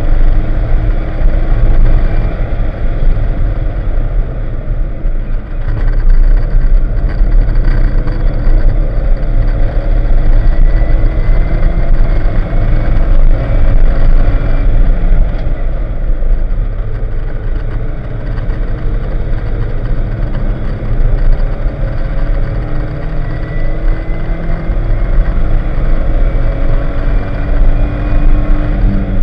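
Porsche 944's naturally aspirated inline-four engine pulling hard, heard from inside the cabin over loud wind and road noise. The engine note climbs several times and drops back as the car accelerates and shifts.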